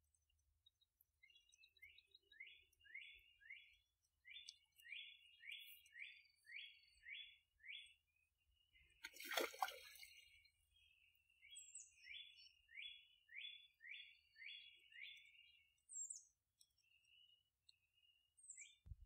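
A small songbird calls over and over in a quick series of short falling chirps. About nine seconds in, a louder splash and wing-flapping on the water breaks in, as a Canada goose jumps away from a snapping turtle's lunge.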